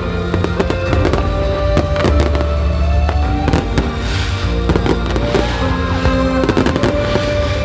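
Fireworks display: many bangs and crackles in quick succession, with music playing under them.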